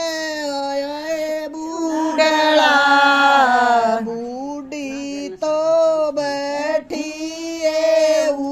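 A woman singing a Haryanvi folk song without accompaniment, in long, drawn-out phrases with short breaks for breath between them.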